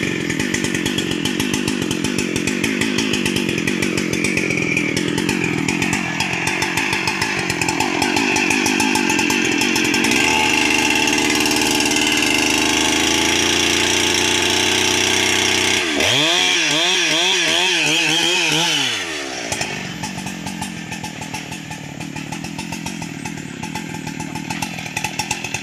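Husqvarna 395XP two-stroke chainsaw running and cutting into a felled rubberwood log at full throttle. Its engine pitch swings up and down several times about two-thirds of the way through, then it drops back to idle.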